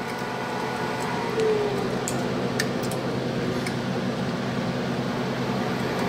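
Gas furnace with a variable-speed inducer, run from an inverter, humming steadily as its inducer and blower motors run, with a few light clicks in the middle.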